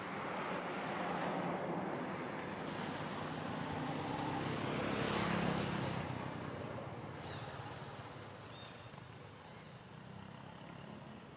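Passing road traffic: a rushing noise that swells to its loudest about halfway through, then fades.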